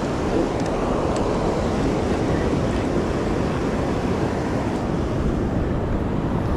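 Steady rush of surf washing onto the shore, mixed with wind noise on the microphone.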